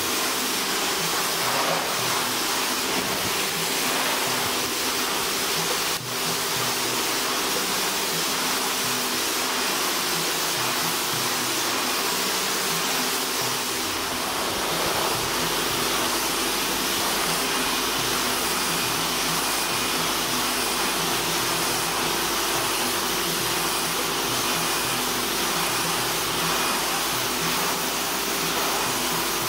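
Polyurethane spray-foam gun hissing steadily as compressed air sprays the two-component foam mix.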